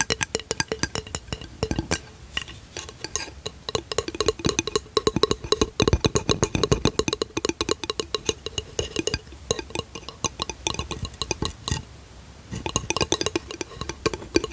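Fingers tapping quickly on a small hard object: fast, dense clicks, many of them with a short hollow ringing tone, with a brief lull about twelve seconds in.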